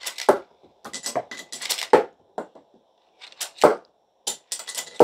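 Crunch Labs toy disc launcher shooting small discs one after another, with a rapid series of clicks, knocks and clatter as the discs fire and land.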